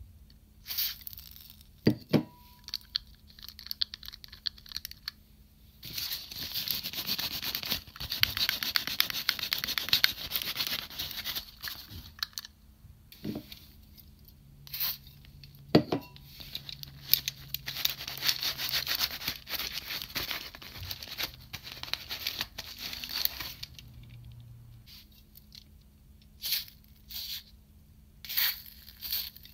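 Aerosol silicone spray hissing through a thin nozzle straw onto a plastic toy's parts, in long sprays and then short spurts near the end. Sharp clicks and rustling come from the plastic parts being handled.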